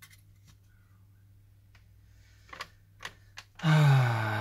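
A few faint clicks from prying a smartphone's flex cable connector, then about three and a half seconds in, a loud drawn-out tone that falls in pitch and slowly fades, just as something goes wrong with the repair.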